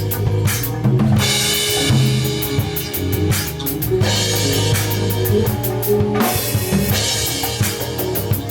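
Music played live on a drum kit, with a steady low bass line underneath and cymbal washes that come in about a second in, near four seconds and near seven seconds.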